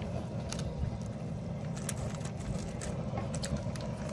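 Propane burner under a large stockpot of boiling water, running with a steady low roar. A few light clicks sound over it.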